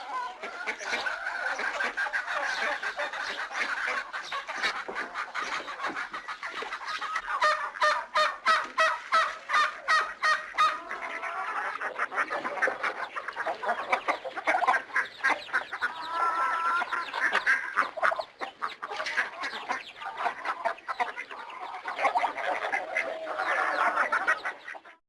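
Barnyard chorus of chickens clucking with geese honking among them, many calls overlapping continuously. It stops abruptly at the very end.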